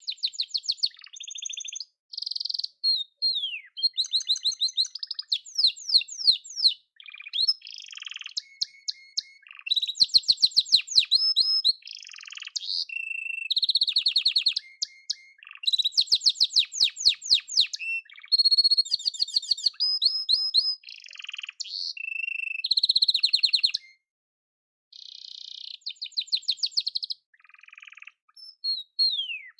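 Male domestic canary singing a long, varied song of rapid trills, quick falling notes and short held tones, in phrases separated by brief pauses.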